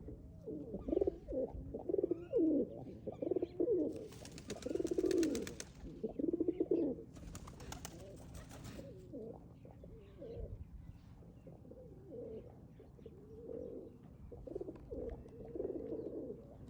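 Male domestic pigeon cooing over and over, the calls strongest in the first half and fainter toward the end. A rustling hiss cuts in twice, about four and seven seconds in.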